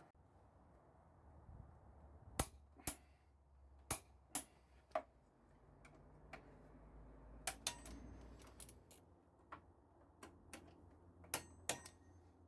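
Irregular sharp metallic clicks and clinks, about fifteen, a few ringing briefly, from hand tools worked on motorcycle parts, over a low background hum.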